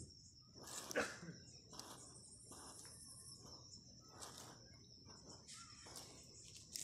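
Crickets chirring steadily in a high, thin tone, faint. Several short soft rustles sound over it, the loudest about a second in.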